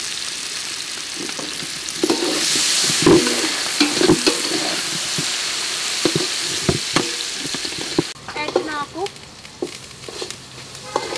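Garlic, shallots, lemongrass and lime leaves sizzling in hot oil in an aluminium pot, with a metal spatula scraping and knocking against the pot bottom as they are stirred. The sizzling drops away about eight seconds in.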